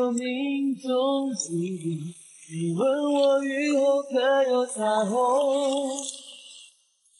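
A voice singing a slow melody with long held notes, some wavering in pitch, with a short break about two seconds in and a fade-out near the end.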